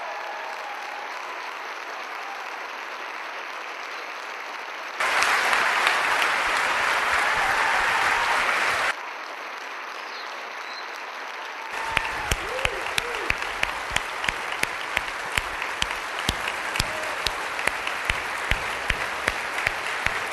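Audience applauding steadily, with a louder surge for a few seconds a little way in. In the second half, one person's claps stand out close by, about two or three a second, over the crowd's applause.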